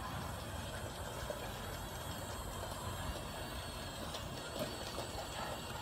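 Toy Disney monorail trains running on a plastic beamway: a steady small-motor whir with a few light clicks.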